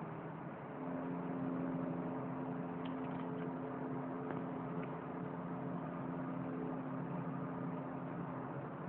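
Steady low drone from the sky, like a jet hovering overhead, over a constant rushing noise. A steady hum tone comes in about a second in and eases off near the end.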